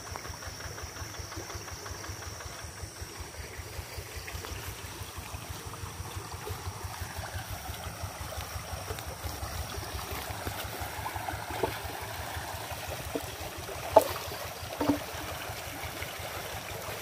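Hand tractor's diesel engine idling with a steady low putter, mixed with a creek's running water. A few sharp knocks come near the end.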